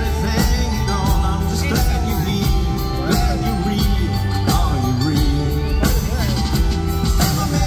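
Live rock band playing a song on drums, bass, electric guitars and keyboards, with a melody line gliding over a steady beat.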